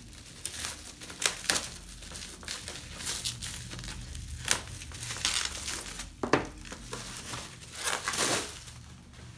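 Plastic bubble wrap being slit with a knife and pulled open by hand, crinkling and tearing in irregular bursts with a few sharp clicks.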